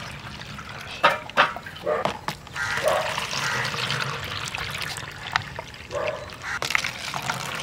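Watermelon juice pouring in a thin stream into thin plastic cups, a steady liquid trickle. A few sharp clicks of cups knocking come about a second in.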